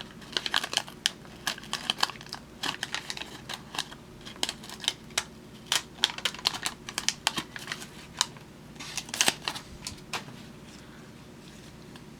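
Irregular crisp clicks and crackles of a wax-paper card pack and its cardboard baseball cards being handled, stopping near the end.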